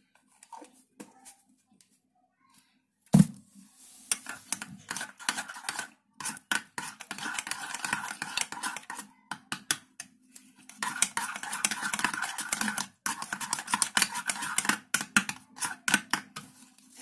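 A steel spoon stirring a yogurt, aloe vera gel and honey face-mask mixture in a small bowl: a fast, steady clatter and scrape of spoon against bowl, with a short pause partway through. A single sharp knock about three seconds in comes before it.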